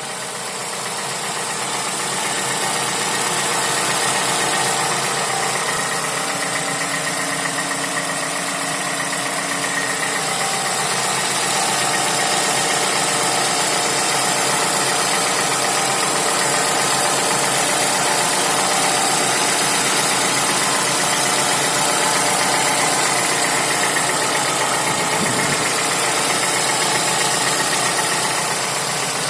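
Toyota Camry's 2AR-FE 2.5-litre inline-four idling warm with a knock whose cause is unknown: a dealer check found nothing and ruled out a connecting-rod knock, and the owner finds nothing wrong with the timing chain.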